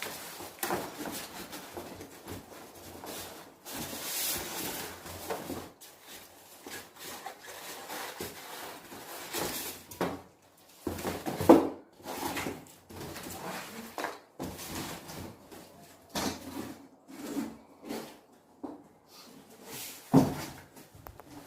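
Irregular rubbing, scraping and rustling of an LG water filter and its packaging being handled and unpacked, with a few sharper knocks, the loudest about halfway through and another near the end.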